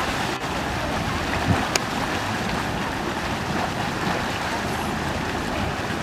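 Grey mud churning in a mud volcano's crater pool, a steady rushing noise.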